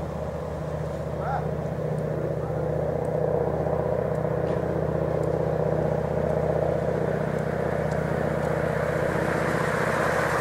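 Bertram 33 Flybridge motor yacht under way, its engines running steadily with the rush of its bow wave and wake. The water noise grows louder near the end as the boat draws closer.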